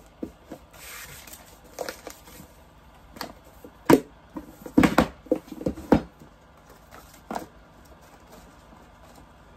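Hands handling a kit box and its packaging: a brief rustle and crinkle about a second in, then a scatter of sharp knocks and taps, loudest between about four and six seconds in.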